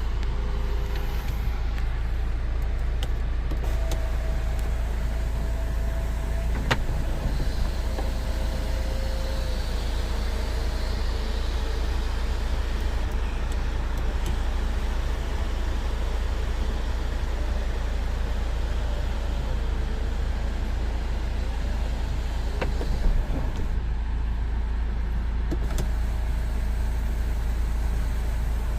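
Hyundai Santa Fe 2.0-litre diesel car running, a steady low rumble with a few faint clicks.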